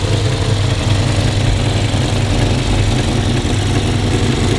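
1953 Studebaker Commander V8 engine idling steadily with the hood open, running smoothly.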